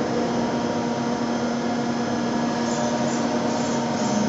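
Steady mechanical hum and whir of a Dörries Scharmann CNC floor boring and milling machine running under power, with several held tones over it. A faint high hiss comes and goes over the last part.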